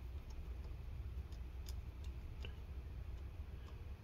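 Faint, scattered light clicks and ticks of fingers handling a laptop's metal hard-drive bracket against the plastic palm-rest chassis, over a steady low hum.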